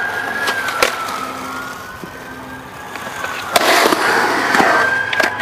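Skateboard on concrete: a few sharp clacks and a loud rush of wheels rolling from about the middle, over a siren wailing slowly up and down.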